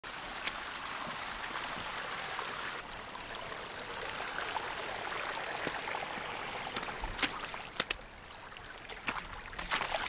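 Small muddy woodland stream of rainwater runoff running and splashing down a gully. The water sound fades after about eight seconds, and a few sharp knocks come in the last three seconds.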